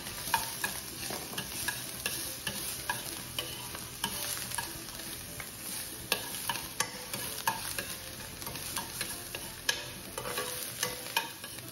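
Chopped onion sizzling as it sautés in hot olive oil, stirred with a metal spoon that clicks and scrapes against the pan at irregular moments.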